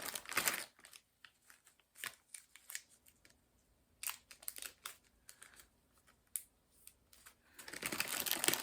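Small plastic bags of diamond-painting drills being handled: scattered light clicks and crinkling, with a denser stretch of bag rustling near the end.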